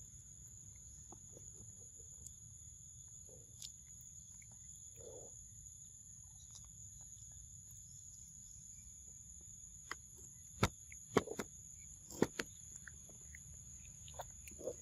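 Baby macaque biting and chewing soft ripe fruit close to the microphone: quiet at first, then a few sharp wet bites and smacks in the last few seconds.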